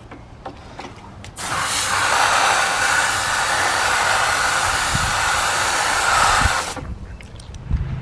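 A spray of water runs for about five seconds, starting about a second and a half in and cutting off near the end. It is washing dirt out of an air conditioner condenser's base pan around the compressor.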